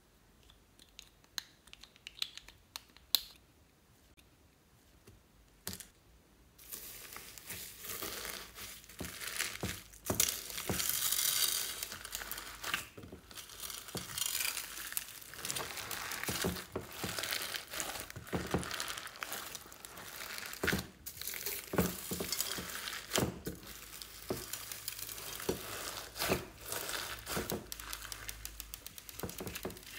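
Hands kneading and squishing white slime mixed with foam beads, pearls, sequin confetti and glitter in a glass tray, a dense crackling full of small clicks. It starts about six seconds in; before that there are only a few faint clicks as a small stick scrapes a little container.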